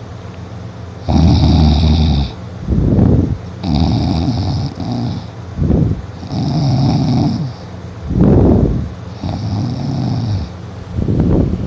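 Loud snoring of a person in deep sleep after drinking, the soft palate rattling. Each breath brings a long rattling snore and then a shorter one, about every two and a half seconds, four breaths in all.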